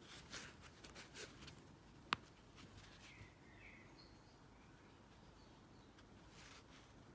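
Near silence with faint soft rustles of yarn and a crochet hook working single-crochet decreases, and one sharp click about two seconds in.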